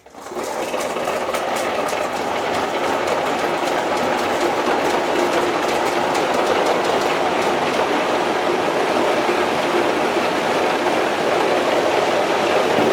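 Many glass marbles rolling along marble run tracks, a dense steady rolling rumble with a rapid patter of clicks from marbles knocking against each other and the track, fading in at the start.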